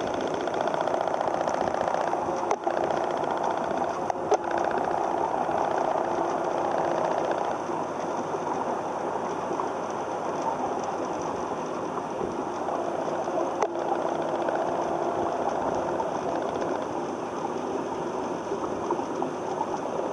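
Steady mechanical hum running without a break, with three short sharp clicks: two close together early on and one around the middle.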